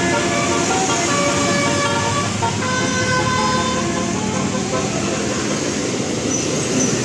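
Bus 'telolet basuri' musical air horn playing a tune of several steady tones that change pitch in steps, over engine and traffic noise. The tune stops about three and a half seconds in, leaving the engine and road noise.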